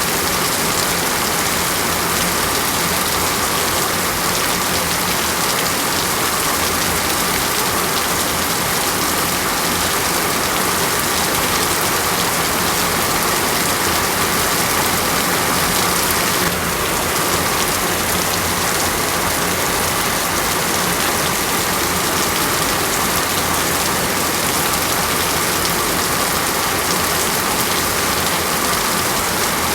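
Steady, heavy rain falling on a surface, an even unbroken hiss.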